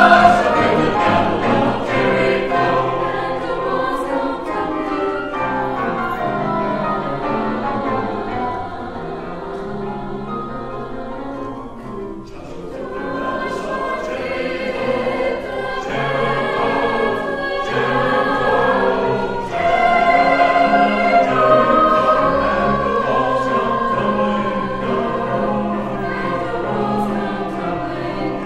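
Choir singing a slow sacred piece in sustained notes. It grows softer about twelve seconds in and swells again about twenty seconds in.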